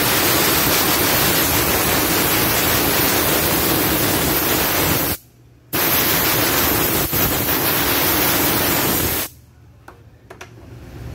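Loud, steady hiss of rushing air. It breaks off sharply for half a second about five seconds in, then stops abruptly about nine seconds in.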